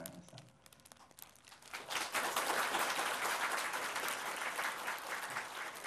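Audience applauding: a few scattered claps at first, swelling into full, dense applause about two seconds in and carrying on steadily.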